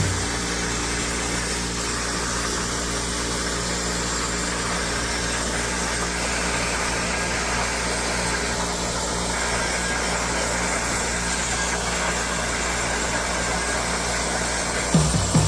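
CNC plasma cutter cutting steel: a steady hiss with a low, even hum underneath.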